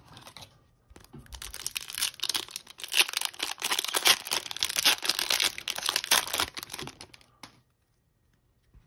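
Hockey card pack wrapper crinkling and tearing as it is ripped open by hand: dense crackling that starts about a second in and stops abruptly near the end.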